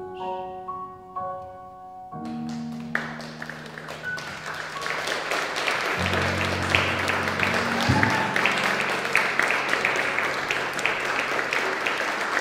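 The last held notes of the song's backing track die away, and about three seconds in an audience starts applauding, the clapping building and going on until it is cut off. A few low notes of the accompaniment still sound under the clapping.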